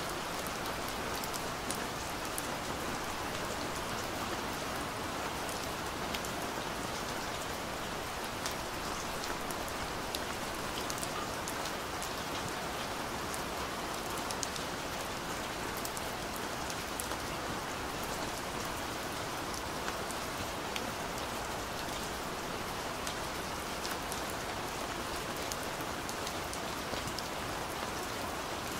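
Steady rain falling: an even hiss with many small scattered ticks of drops.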